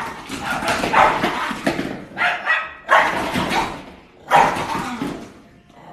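Small dog barking in a run of harsh bursts, roughly one a second, fading near the end: the owner says it is the weird thing her dog does when he gets angry.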